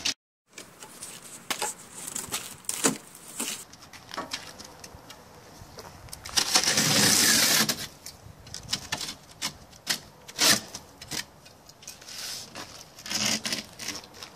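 Utility knife scraping through USG Durock cement backer board, with clicks and knocks as the board is handled. One longer, louder scrape runs about seven seconds in.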